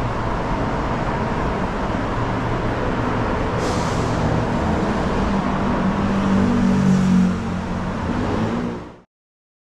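Road traffic: a vehicle engine running steadily under traffic noise, with a short hiss about four seconds in. The engine grows louder toward the end, then the sound cuts off suddenly.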